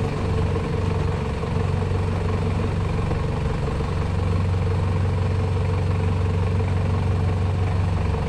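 Toyota Hilux Surf engine running steadily at low speed on a rough track, with tyre noise from loose stones under the wheels.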